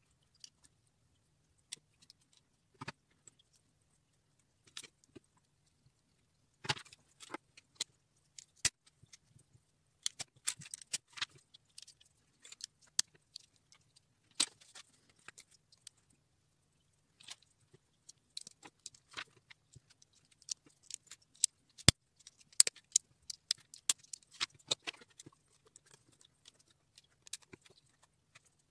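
Lego pieces clicking and rattling as they are picked up, sorted and pressed onto a plate: a run of small sharp clicks, sparse at first and busier from about ten seconds in, with one louder snap a little past the middle.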